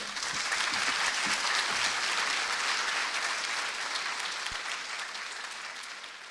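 Audience applauding, starting all at once, strongest in the first two or three seconds and then slowly dying down.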